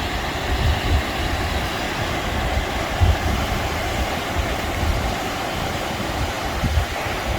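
Steady rush of flowing river water, with irregular low rumbles from wind buffeting the microphone.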